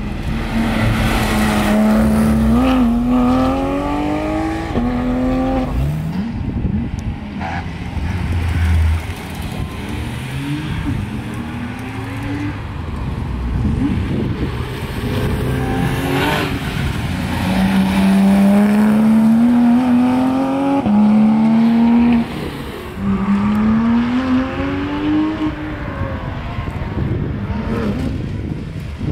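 Porsche 911 GT3 (991.2) with its naturally aspirated 4.0-litre flat-six, accelerating hard in several runs. Each run is a rising engine note that drops sharply at each upshift and climbs again.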